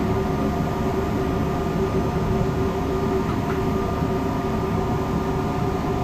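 Mabru SC7DC 12-volt DC marine air conditioner running under test, a steady mechanical hum with a few held tones and no change in pitch.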